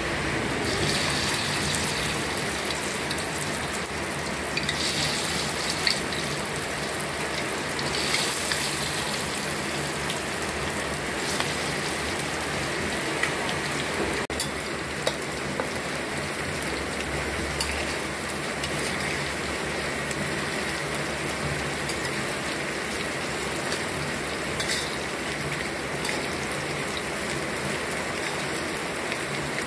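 Small battered shrimp deep-frying in hot oil in a wok: a steady sizzle with scattered pops and crackles, and louder surges of sizzling in the first ten seconds or so.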